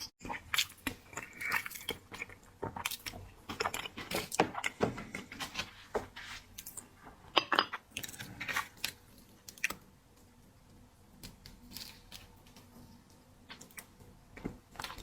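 Close-miked eating of seafood: chewing, biting and crunching with many wet clicks and crackles, busy for the first ten seconds and then sparser.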